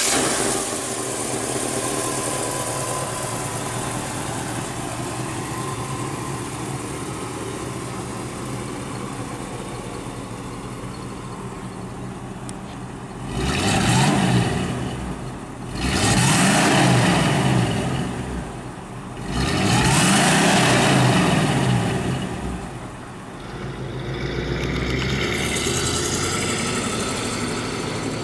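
1964 Chevrolet Impala's V8 engine idling steadily, then revved three times, each rev climbing and falling back over about two seconds. After the revs the engine settles into a steadier, lower note as the car pulls away.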